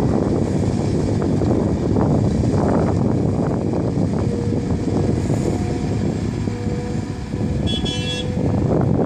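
CAT 345B hydraulic excavator working under load, its diesel engine and hydraulics running steadily as it digs rock and lifts a full bucket, with scraping of the bucket in the rock in the first few seconds. Near the end there is a brief high tone.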